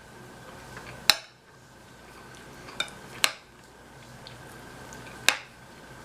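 Cutlery clinking against a dish while eating: three sharp clinks about two seconds apart, with a fainter tap between the first two.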